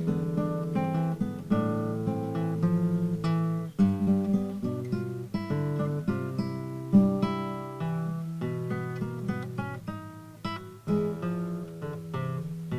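Solo classical guitar with nylon strings, plucked fingerstyle: a continuous flow of picked notes over a bass line, with brief breaks about four seconds in and again near eleven seconds.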